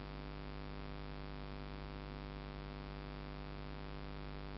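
Steady electrical hum with a buzzy stack of overtones, unchanging throughout: interference noise in the recording itself.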